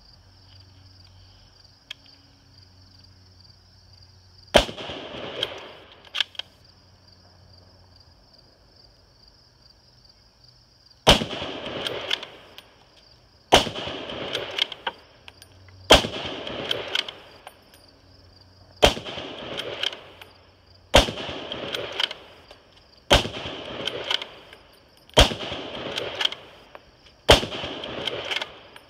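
Ruger Gunsite Scout bolt-action rifle in .308 firing nine shots: one alone, then after a pause eight more at about two-second intervals, each shot ringing briefly.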